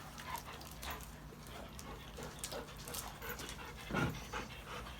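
English golden retriever puppies and adult dogs playing: soft, scattered clicks and scuffles, with one brief louder sound about four seconds in.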